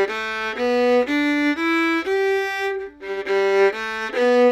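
Fiddle bowing the G pentatonic scale from open G, one clear note about every half second, stepping up and back down, then starting the run again about three seconds in.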